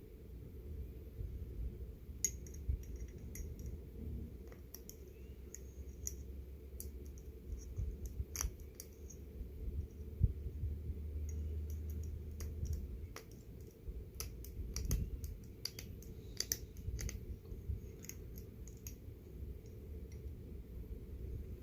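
Razor blade scraping cured windshield-repair resin off a glass lantern chimney: irregular small scratches and clicks of the blade on the glass.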